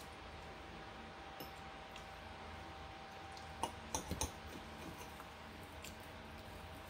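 Metal cutlery clicking against ceramic plates, a quick cluster of about four light clicks midway, over a faint steady room hum.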